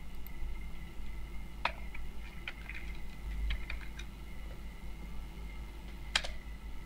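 Faint, scattered clicks of a computer keyboard and mouse, a few small ones close together in the middle and a sharper single click near the end, over a steady low electrical hum.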